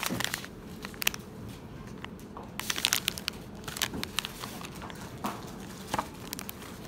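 Clear plastic packaging sleeve crinkling as hands handle it, with paper brochures being moved about. The sound comes as irregular sharp crackles in clusters.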